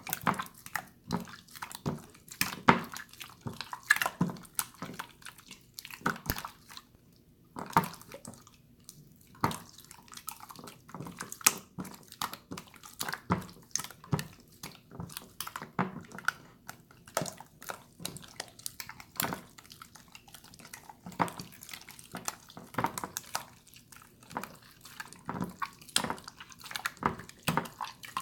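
Jiggly water slime being squished and poked by hand, making irregular wet clicks, pops and sloshing squelches, several a second.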